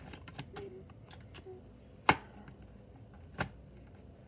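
Clicks and knocks of a plastic animatronic prop's base being handled and pushed back into place, with a sharp loud knock about two seconds in and another about three and a half seconds in.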